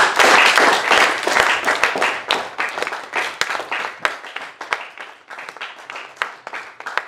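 Audience applauding, loudest at the start and thinning out to scattered separate claps toward the end.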